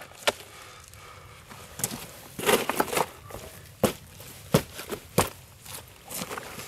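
Sharp clicks and knocks of stones and gravel being shifted and stepped on. About half a dozen separate strikes, with a close cluster of them a little before the middle, and soft crunching in between.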